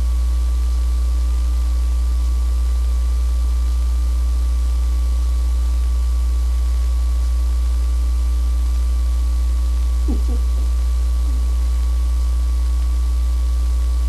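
Loud, steady electrical mains hum on the recording, with a thin steady whine above it. About ten seconds in there is one brief faint call.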